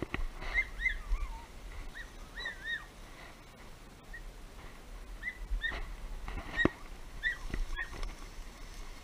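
Birds giving short, repeated chirping calls, with a few sharp knocks among them, the loudest about two-thirds of the way in.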